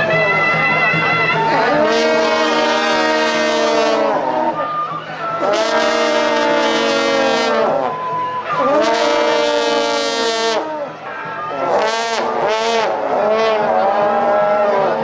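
A group of long straight procession horns (shaojiao) blown together in long held blasts, each swooping in pitch at its start and end. There are three blasts of about two seconds each, then shorter, wavering ones near the end.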